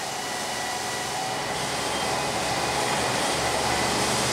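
Landing-gear test rig's spin-up drive: small wheels driven by powerful electric motors spinning the 55-inch tyres of an Airbus A380 main landing gear backwards to simulate touchdown ground speed. The sound is a steady mechanical whir with faint steady tones, growing slowly louder.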